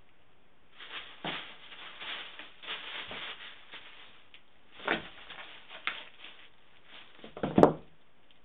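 Tissue paper crinkling and rustling in a cardboard box as a kitten moves about on it, with a few sharper crackles. There is a louder bump near the end.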